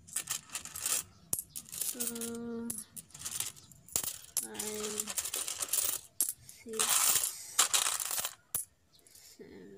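Loose peso coins being counted and sorted by hand on a counter, clinking and sliding against each other in quick irregular clicks and jingles. The jingling is loudest in a spell about seven seconds in.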